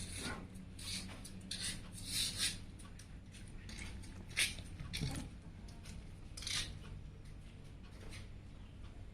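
PC parts being handled by hand: a run of light clicks, taps and scrapes, with a sharper click about four and a half seconds in, over a faint steady low hum.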